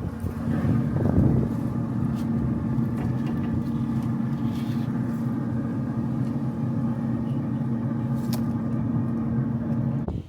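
Steady machine hum holding one constant pitch, with a few faint ticks over it, cutting off abruptly just before the end.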